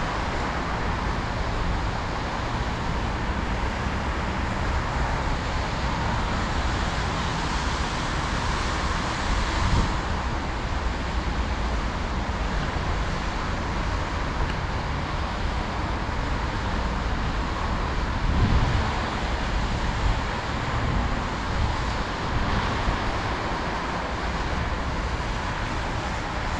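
Steady road traffic noise from cars on the road below, with low wind rumble on the microphone and a few brief low thumps.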